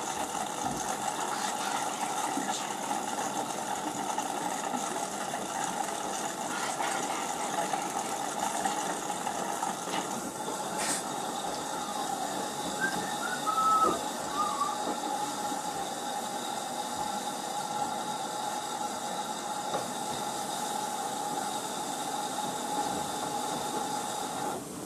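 Front-loading washing machine running, its drum turning a load of clothes with a steady whirring hum. There is a sharp click about eleven seconds in and a few short high squeaks a couple of seconds later. The hum drops away just before the end.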